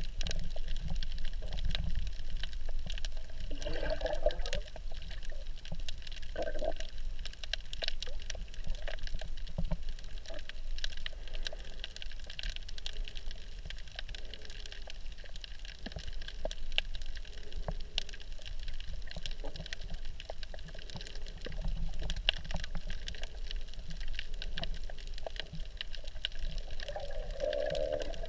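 Underwater water noise heard by a GoPro while snorkeling: a steady muffled wash with fine crackling ticks throughout, and a few brief low gurgles, about 4 and 6 seconds in and near the end.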